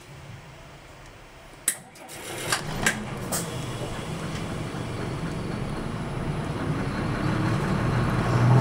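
Nissan Diesel Space Runner RA city bus pulling away from a stop, heard from inside: a few sharp clicks about two seconds in, then the diesel engine running and growing steadily louder as the bus gets under way.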